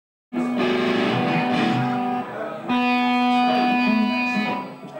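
Electric guitar through an amplifier playing two long chords, each left to ring about two seconds, with a short break between them.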